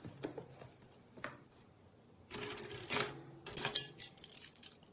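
Kitchen handling noise: a few light clicks, then a denser clatter about halfway through as a plastic food container's lid is opened and a ring of metal measuring spoons rattles.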